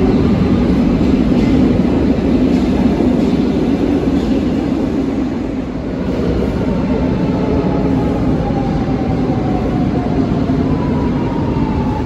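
Lisbon Metro train running along an underground platform: a loud, steady rumble of wheels and traction motors, with an electric whine that falls in pitch over the last few seconds.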